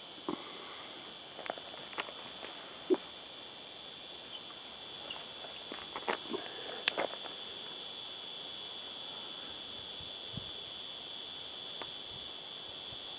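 Steady high-pitched chirring of insects, with a few scattered sharp taps and knocks; the loudest come about three seconds and about seven seconds in.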